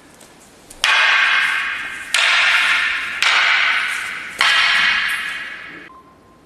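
Four sharp clacks of wooden fighting staffs striking one another, a little over a second apart, each followed by a long ringing fade: the staffs meeting as attacks are struck and blocked in a paired staff drill.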